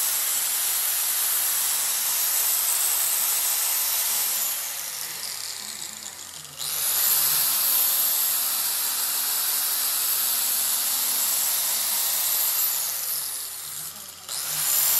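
Electric angle grinder with a thin disc grinding the steel teeth of a pinion gear, a loud high-pitched grinding. About four and a half seconds in it eases off with its pitch falling, then comes back suddenly with a rising whine about six and a half seconds in; it eases again near the end and picks up once more.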